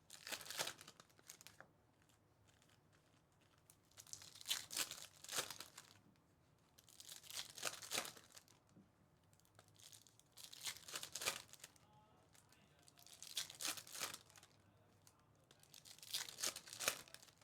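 Trading card pack wrappers being torn open and crinkled, in six short bursts about three seconds apart.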